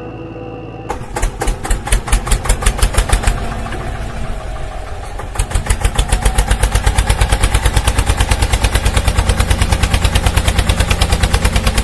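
A small engine running with a rapid, even beat of about six pulses a second, starting about a second in.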